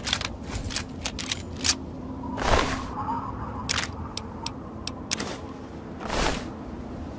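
Video game sound effects over a steady low ambient hum: a quick run of sharp clicks, then several short rushing swells as a loot menu is opened and an item is taken, the first swell, about two and a half seconds in, the loudest.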